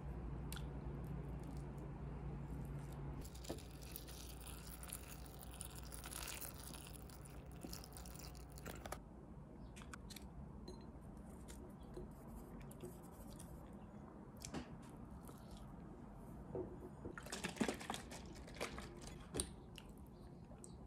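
A baked sweet potato being peeled by hand over a ceramic bowl: soft tearing and crackling of the skin, with scattered light clicks and knocks, busiest near the end. A low steady hum underneath stops about three seconds in.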